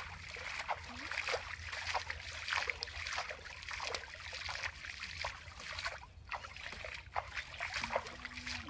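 Repeated splashing of shallow pond water as a hand scoops and throws it toward a fishing net held in the water, short irregular splashes about two to three a second.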